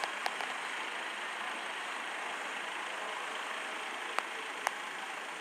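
Compact tractor engine running steadily at low speed as it pulls a small trailer, heard as an even engine noise across a large indoor arena. A few sharp clicks come through, one just after the start and two about four seconds in.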